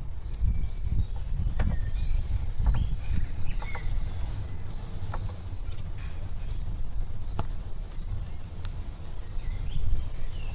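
Steady low rumble of wind and tyres from a bicycle riding along a smooth paved path, with small birds chirping now and then and a few sharp clicks.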